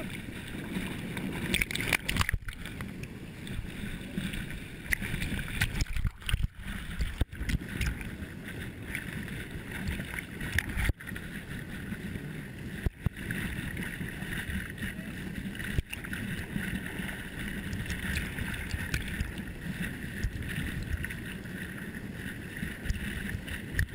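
River rapid water rushing and splashing right at the camera's microphone, steady but choppy, with a swimmer held in the current. The sound cuts out for an instant several times.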